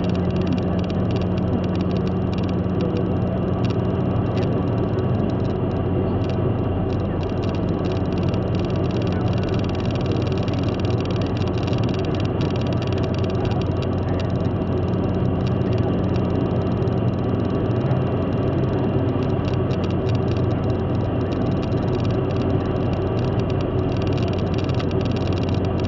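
Steady drone of a car cruising at motorway speed, heard from inside the cabin: a low, even engine hum under road and tyre noise, with no change in pitch or level.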